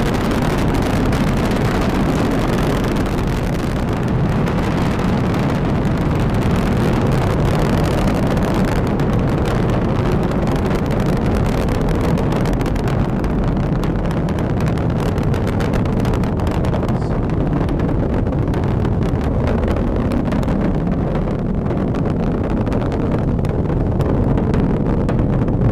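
Delta IV Heavy rocket's three RS-68A engines in flight: a loud, continuous deep roar full of crackle. The high crackle dulls over the stretch as the rocket climbs away.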